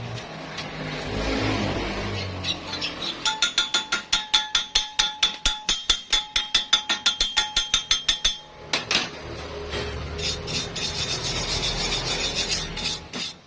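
Metal being worked by hand: a fast, even run of rasping strokes on metal, about six a second, with a ringing tone over them. It gives way to a steadier rasping that stops just before the end.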